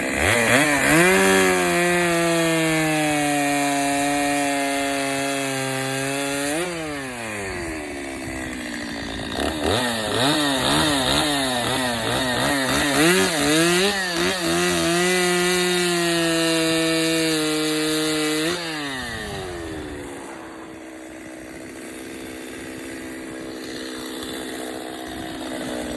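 Stihl 025 two-stroke chainsaw with a 16-inch bar cutting wood: held at high revs for about six seconds, dropping back, then revved and cutting again for about nine seconds with the pitch wavering under load, before settling to a steady idle for the last several seconds.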